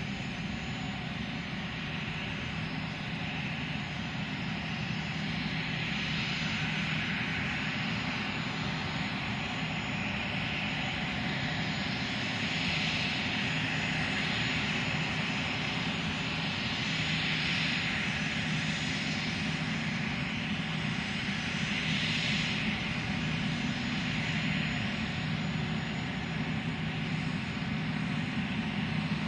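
Dassault Falcon 8X business jet taxiing, its three turbofan engines running at low taxi power: a steady jet hiss and whine over a low hum. The whine swells and fades every few seconds, and the overall sound grows a little louder as the jet comes closer.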